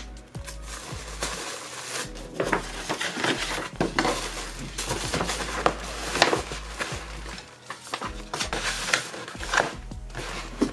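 Kraft paper packaging being handled: a paper bag crinkling as it is pressed and folded, then a stiff cardboard mailer rustling and scraping on the desk in irregular bursts.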